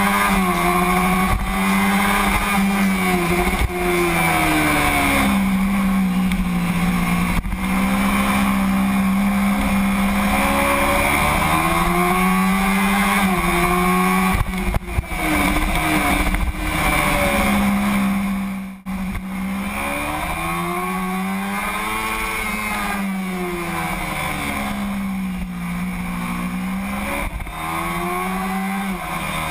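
Kawasaki Ninja 250R's parallel-twin engine heard onboard at track speed, its pitch climbing and falling over and over as the rider accelerates, shifts and brakes, over a steady rush of wind on the microphone. A little past halfway the sound drops out for a moment and carries on slightly quieter.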